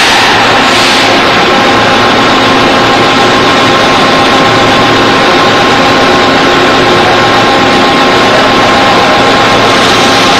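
Large CNC floor-type horizontal boring mill running: a loud, steady mechanical noise with a thin, steady whine held over it.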